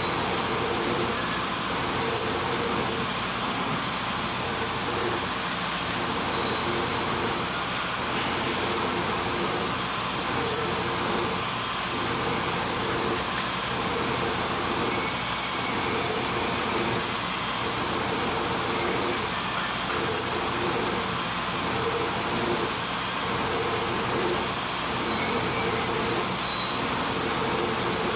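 Vertical milling machine running steadily as its cutter mills the spiral groove of a traverse shaft, fed by hand.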